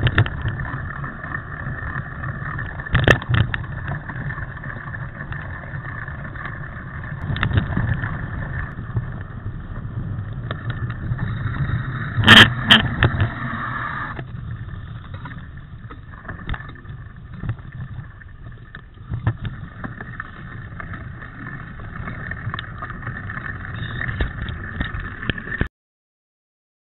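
Wind rushing over an action camera's microphone with the rattle and knocks of a mountain bike riding over rough forest trail; a sharp knock about twelve seconds in is the loudest. The sound cuts off abruptly near the end.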